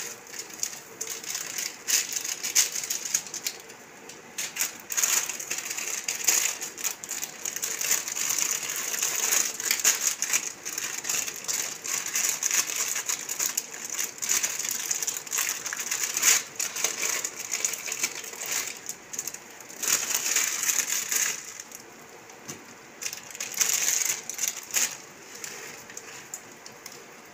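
Plastic instant-noodle packet crinkling and rustling as it is handled and torn open, in irregular crackly bursts with short quieter gaps.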